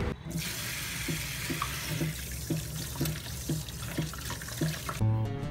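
Kitchen tap running, its stream splashing over a whole fish held above a plastic bowl in a steel sink as the fish is rinsed after scaling. The water cuts off suddenly near the end.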